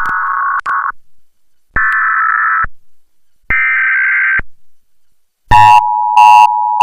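Emergency Alert System broadcast tones: three buzzing digital data bursts of the alert header, about a second each and about a second apart, each a little higher in pitch than the last. Then the EAS two-tone attention signal, chopped into three short, very loud stuttering blasts.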